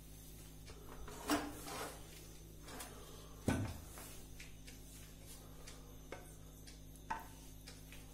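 A few scattered knocks and clatters of kitchen vessels and utensils being handled, the loudest about three and a half seconds in, over a low steady hum.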